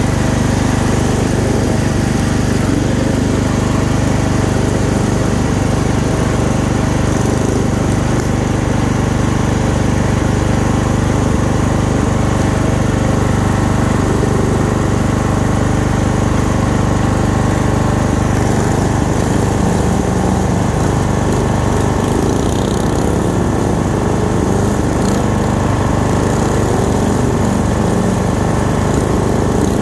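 Lawn tractor engine running steadily at an even speed while driving along.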